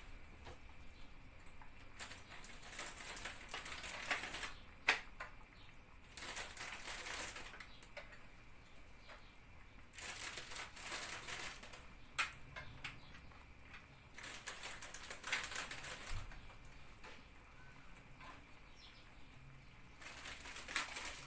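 Crinkling of a plastic rusk packet as the dry etimek rusks are pulled out and set into a glass baking dish: several bursts of rustling, a few seconds apart, with occasional sharp clicks as the rusks touch the glass.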